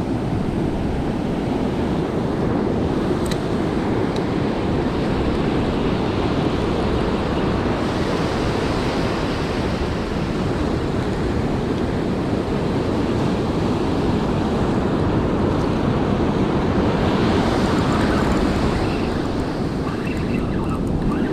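Surf breaking and washing up over the sand in a steady rush, with wind buffeting the microphone.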